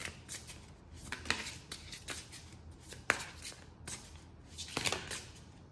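A tarot deck being shuffled by hand, with scattered sharp snaps and flicks of the cards, the sharpest about three seconds in.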